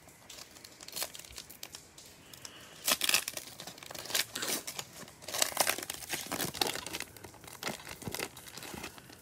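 A foil trading-card pack wrapper being torn open and crinkled by hand: a run of sharp crinkly rustles, loudest about three seconds in and again around five to six seconds.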